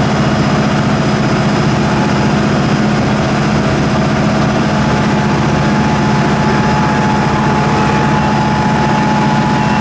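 Steady low drone of running machinery, with a higher thin whine joining about halfway through.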